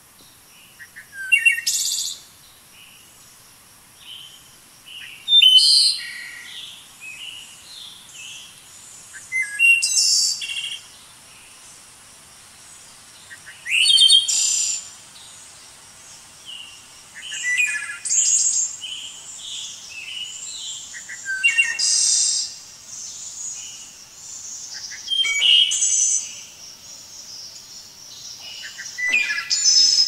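Songbirds singing: a short, high song phrase repeated about every four seconds, with quieter chirps in between.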